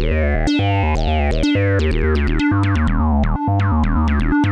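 Acid-style synth bassline played through a Make Noise QPAS stereo analog multimode filter, with the quad filters adding stereo animation. Short sequenced bass notes each carry a resonant filter sweep that falls quickly, several per second, and the phrase repeats about once a second.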